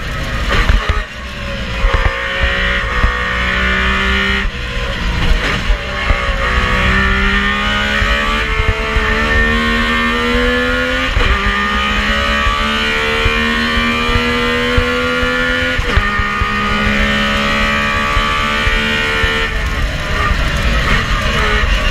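Metro 6R4 rally car's 3-litre V6 engine, heard from inside the cabin, pulling hard under acceleration. Its pitch climbs through each gear and drops sharply at every gear change, several times in a row.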